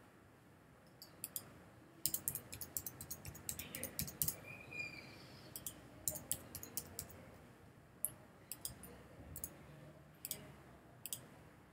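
Computer keyboard typing and mouse clicks, faint: a quick run of key taps about two seconds in, then scattered single clicks.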